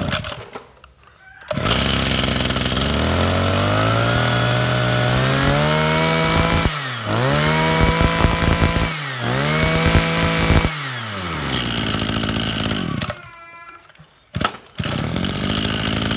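Small two-stroke engine of a Robin brush cutter starting up. It climbs in revs, is throttled up high three times with quick drops between, then falls back to idle. It drops out for a second or so near the end and then runs steadily again. It sounds firm and solid, which the seller takes as a sign the engine is in good health.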